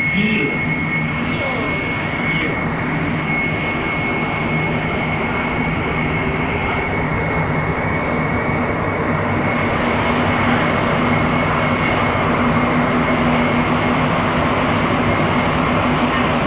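Montreal metro rubber-tyred train pulling out of a station and gathering speed into the tunnel, heard from inside the car. Steady running noise with a high steady whine and a low hum, growing a little louder as it speeds up.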